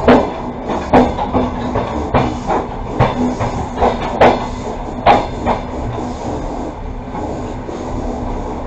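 Passenger train coach running along the track, heard from inside at the window: a steady rumble and hum. Through the first five seconds or so comes a run of sharp, irregular clacks from the wheels over rail joints, then a smoother run.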